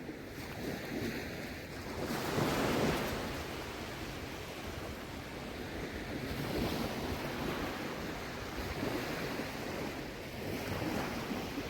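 Shallow sea water washing, swelling in loudness a few times as small waves come in, with wind on the microphone.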